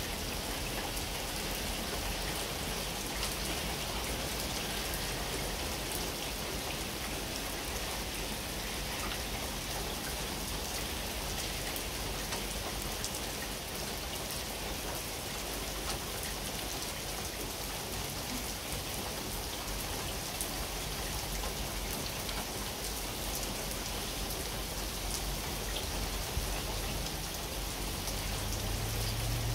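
Heavy rain beating steadily on a paved path: a dense, even hiss of drops striking the surface.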